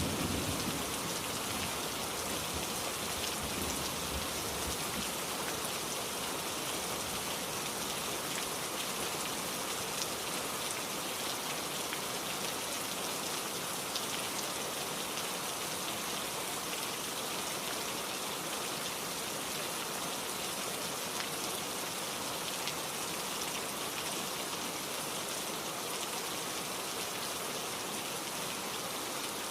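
Steady rain falling on a surface, an even hiss with scattered drop ticks; the tail of a low thunder rumble fades out in the first second or two.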